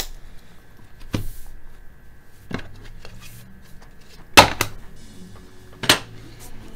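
A handful of separate sharp clicks and knocks from laptop parts being handled and fitted during reassembly, the loudest about four and a half seconds in.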